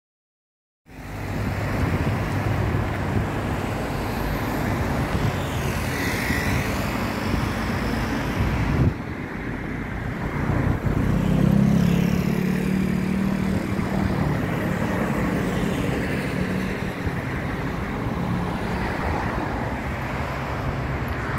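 A motor vehicle's engine and road noise running steadily after a moment of silence, with a short break about nine seconds in.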